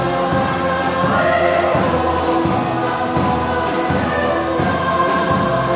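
A choir singing held chords in a choral arrangement, with orchestral accompaniment underneath.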